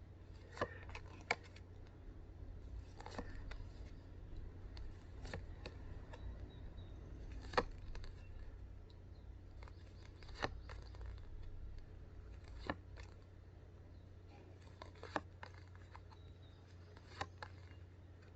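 Faint sharp clicks, about one every two to three seconds, over a steady low hum.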